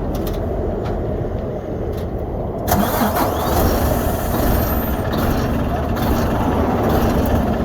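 Diesel engine of a Volvo VNL semi truck being started back up, catching suddenly about two and a half seconds in and then running steadily. The truck had cut out when its corroded, loose battery power wiring was disturbed.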